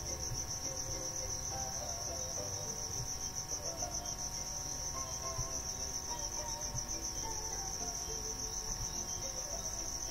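Steady high-pitched insect trill, pulsing rapidly without a break, with faint wavering tones lower down.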